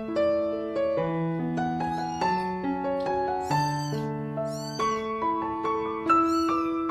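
Soft piano music, over which a cat mews about four times in high-pitched, rising-and-falling calls, the loudest around the middle.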